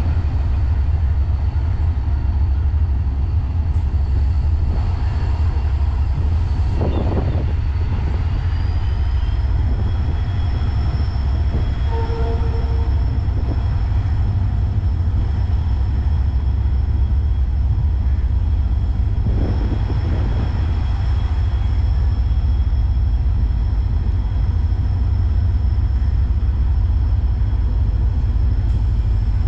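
Diesel locomotive's engine running steadily as it slowly hauls a passenger train in, a deep continuous rumble with a thin high whine that steps up slightly about eight seconds in.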